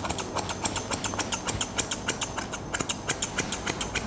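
Grooming scissors snipping steadily through hair, about six or seven quick cuts a second.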